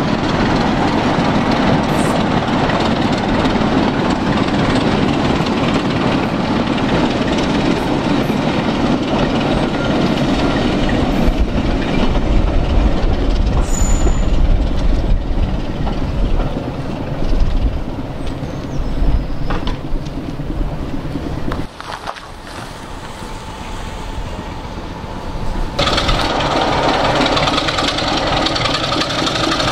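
Diesel-hauled passenger train rolling past, the locomotive's engine and the coaches' wheels on the rails making a steady rumble. It cuts off abruptly about two-thirds of the way in; after a quieter few seconds, a different steady noise starts near the end.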